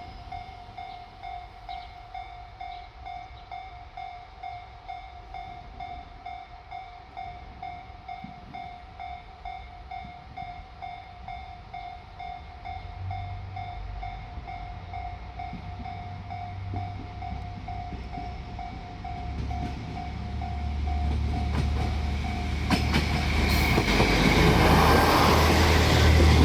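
Japanese level-crossing warning bell dinging steadily in a quick repeating pattern while a diesel railcar approaches. The low engine rumble builds from about halfway through and grows loud over the last few seconds as the train reaches the crossing.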